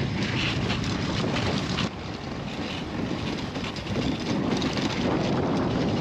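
Dog sled on the move over snow and ice: a steady rumbling, scraping noise from the runners, with wind on the microphone. The noise drops briefly about two seconds in.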